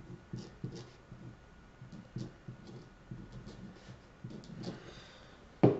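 Faint, irregular ticks and soft scratches of a paint-pen nib tapping and drawing on a painted stone, with small handling knocks on the table, and one sharper knock right at the end.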